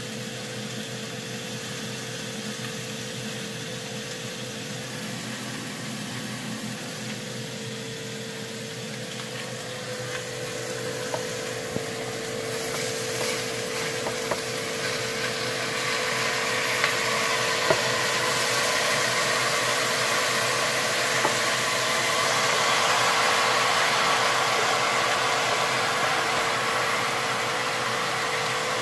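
Sliced carrots and onions sizzling in a frying pan as a wooden spoon stirs and scrapes them, with a few light knocks of the spoon on the pan; the sizzle grows louder partway through. A steady hum runs underneath.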